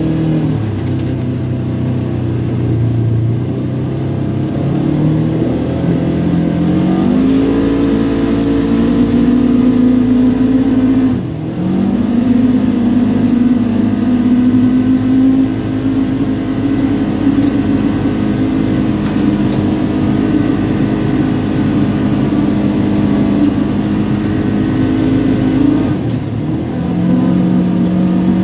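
Polaris RZR 900 side-by-side's parallel-twin engine under way: the revs drop just after the start, climb again a quarter of the way in, dip briefly a little before halfway, then hold steady and higher, easing off once near the end before picking back up.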